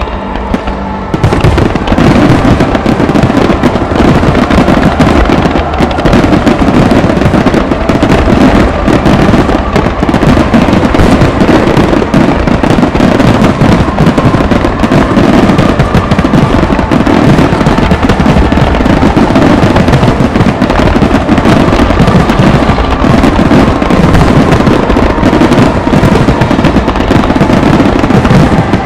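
Japanese display fireworks fired as a star mine, a dense rapid-fire barrage of aerial shells bursting almost continuously in a loud crackle of bangs. The barrage kicks in about a second in.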